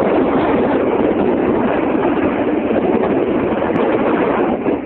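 Steady wind rushing over the microphone of a camera carried aloft on a parasail, a loud unbroken noise.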